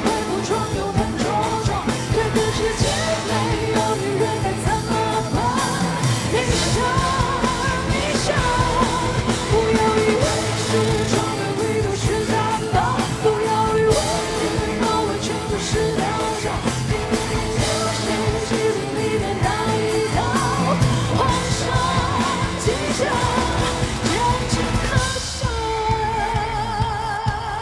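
Pop-rock song performed live: a woman singing lead over a full band, ending on a long held, wavering note near the end.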